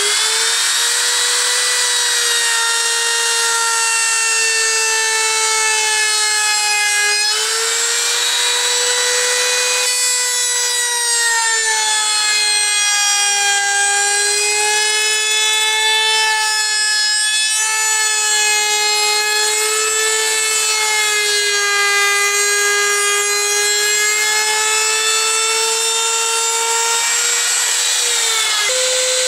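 Compact trim router running at high speed while cutting into a softwood (spruce-pine-fir) edge: a loud, steady high whine that sags a little in pitch each time the bit bears into the wood and then recovers. Near the end the whine dips briefly and picks up again at a steady pitch.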